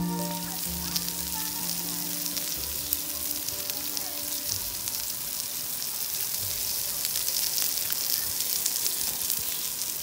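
Meat patties (köfte) sizzling on a ribbed grill pan over a charcoal mangal: a steady hiss with scattered crackles and spits. Soft music fades out over the first few seconds.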